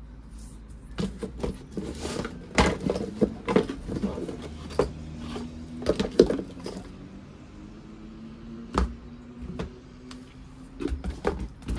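Plastic pressure washer parts and hose being handled and set down in a cardboard box: irregular plastic knocks, clicks and rustles, busiest in the first half, then one knock and a short flurry near the end.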